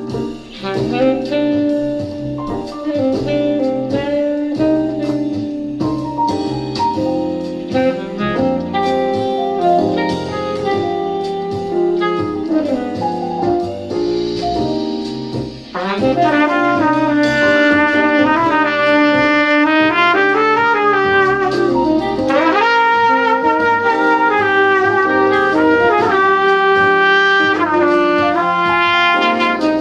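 Trumpet improvising a jazz line over a piano backing track. About halfway in it gets much louder and more forceful, with bent and sliding notes.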